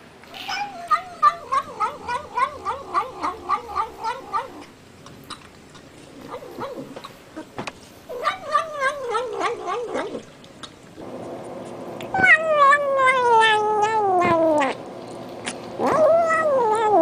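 Cats making the warbling "nom nom" calls some cats make while eating: a quick, rippling run of calls for about four seconds, then several more, among them one long falling cry.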